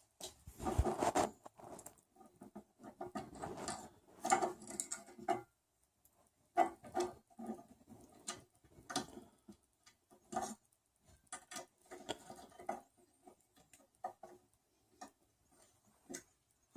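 Hand-assembly noises: irregular light clicks, taps and rustles of small M3 screws and plastic printed parts being handled and started into the 3D printer's Z-axis frame.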